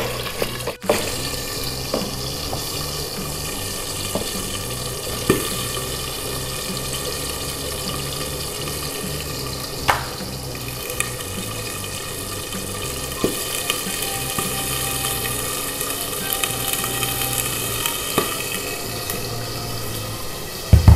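Kitchen food preparation: a steady hiss, like running or simmering water, under scattered light clinks and taps of utensils against bowls, a few seconds apart.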